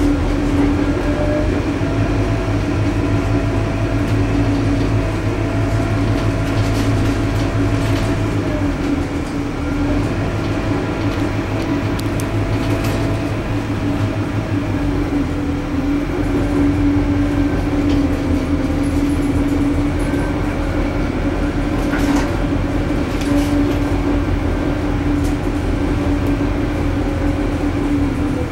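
Scania K230UB bus heard from inside the passenger saloon while under way: its rear-mounted 9-litre five-cylinder diesel and ZF Ecomat automatic gearbox running with a steady drone. A higher whine rises, holds and falls, and the deep engine rumble eases about eight seconds in.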